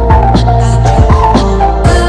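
Background music: an electronic track with a steady drum beat and a deep, sustained bass.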